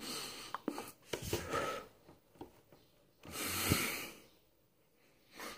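A man breathing out noisily in three breathy exhalations, the longest about three seconds in, with a few small clicks between them.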